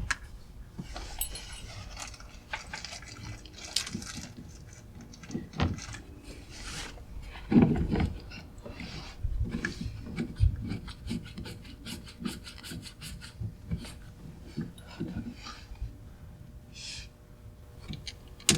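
Irregular light clicks, taps and rubbing from hands working an aftermarket steering wheel onto its quick-release hub: the wheel being lined up with the bolt holes and the bolts started, with one heavier knock a little before halfway.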